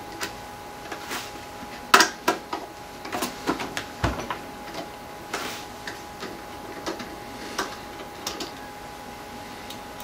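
Scattered light clicks and taps of a screwdriver and hands working on the screws and metal case of a Synology DS1815+ NAS, with a sharper knock about two seconds in and a cluster of clicks and a dull knock around three to four seconds in.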